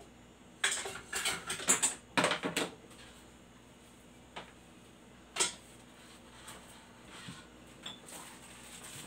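Kitchen utensils and pans clattering as they are handled: a run of rattling knocks over about two seconds near the start, then one sharper knock midway.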